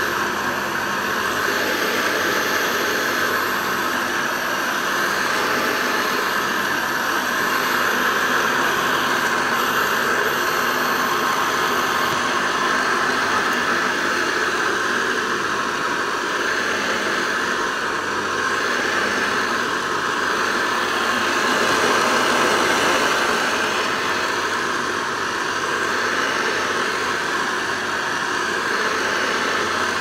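Hoover model 719 upright vacuum cleaner running steadily with a constant motor whine while being pushed over carpet.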